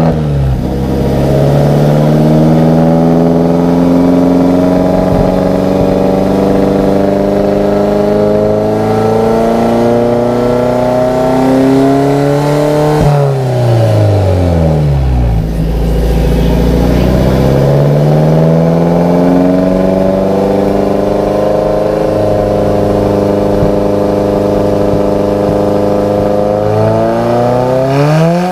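Alfa Romeo 4C's turbocharged four-cylinder engine revved while stationary. The revs climb slowly for about twelve seconds, drop back sharply, then climb again over the next twelve seconds and fall away near the end.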